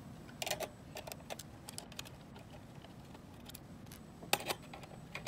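Irregular small metal clicks and clinks of pliers working gold-coloured standoffs loose on an LED video-wall module's sheet-metal box, with a sharper clack a little past four seconds in.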